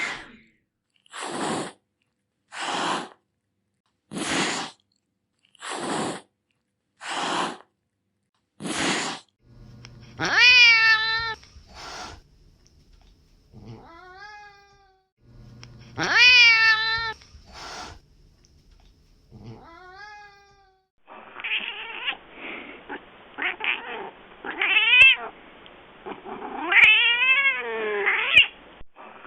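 Domestic cat hissing six times in a row, about a breath and a half apart, then long wavering meows and yowls. From about two-thirds of the way through, a duller recording of cats yowling and caterwauling over one another, with a few sharp clicks.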